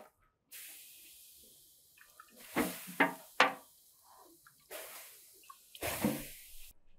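Water flicked by hand onto the hot inner walls of a clay tandoor, hissing as it turns to steam, with a few sharp splashes in the middle of the stretch.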